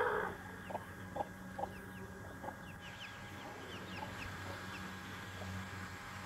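Brahma hen clucking, a few short single clucks in the first couple of seconds, while chicks peep with quick, high, falling cheeps. A brief loud squawk right at the start.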